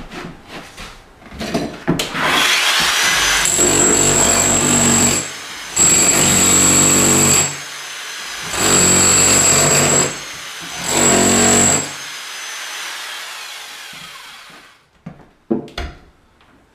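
Electric Bosch demolition hammer chiselling up ceramic floor tiles. The motor starts about two seconds in, then four bursts of hammering a second or two long, with the motor running more quietly between them, before it winds down. A few knocks follow near the end.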